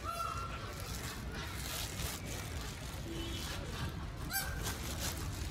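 Peafowl giving two short honking calls, one right at the start and another about four seconds later.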